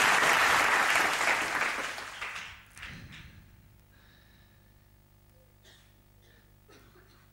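Congregation applauding, the clapping fading out over the first two or three seconds and giving way to near silence.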